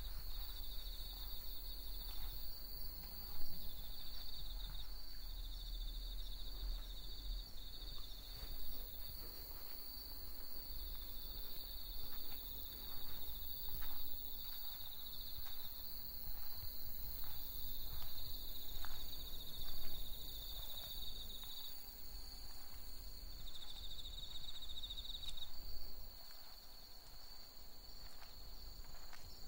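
Night insects chirping in a steady high chorus, with a nearer insect trilling in repeated bouts of one to three seconds, over a low rumble.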